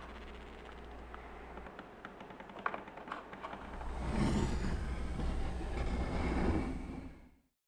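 Horror-film sound design: a low hum with faint scattered clicks, then about four seconds in a loud low rumbling swell that holds for about three seconds and fades quickly to silence.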